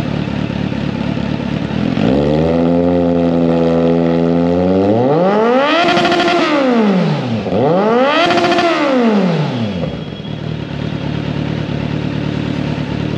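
2023 Kawasaki Z900's inline-four engine running through an Austin Racing (AR) aftermarket exhaust. It idles, is held a little above idle with the note creeping up, then is revved twice, each rev rising and falling quickly, and settles back to idle near the end.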